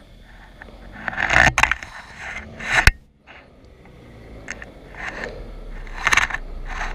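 Irregular scraping and rustling in short bursts, with a sharp knock just before three seconds in.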